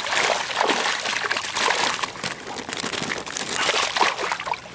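Fish thrashing in a landing net at the water's surface beside a kayak: a continuous run of splashing and sloshing.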